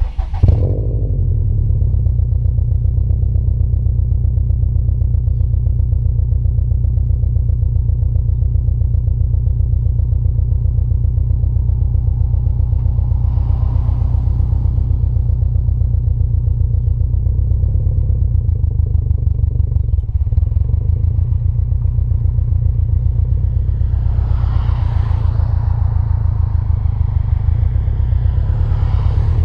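2018 Subaru STI's turbocharged flat-four through an Invidia R400 exhaust, starting up with a brief flare right at the start and then idling with a steady, deep rumble.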